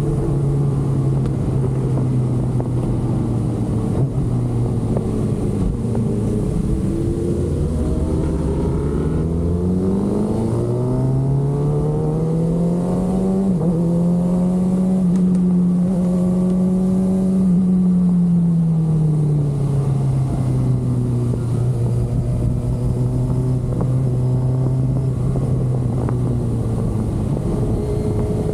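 Kawasaki ZX-6R inline-four engine heard from the bike while riding: a steady cruising note that dips briefly, then rises from about ten seconds in as the bike accelerates, holds higher for several seconds and falls back to a steady cruise.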